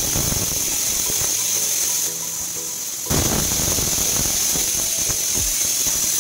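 Pressure cooker whistle going off: steam blasting out under the weighted valve of a Bajaj cooker as a loud, shrill hissing whistle. It eases slightly and then surges again about three seconds in. This is the cooker venting at full pressure, the whistle that is counted to time the cooking.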